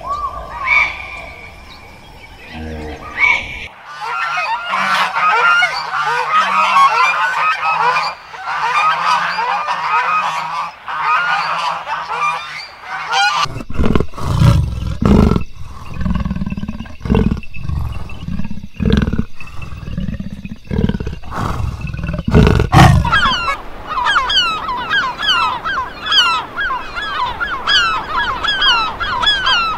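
Animal calls in quick succession: a flock of fowl honking and calling together, then a run of separate loud, deep calls, then many short rising chirps from a group of birds.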